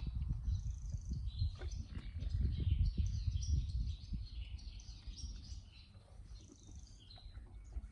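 Small birds chirping and twittering in the background, over an uneven low rumble that is loudest a couple of seconds in.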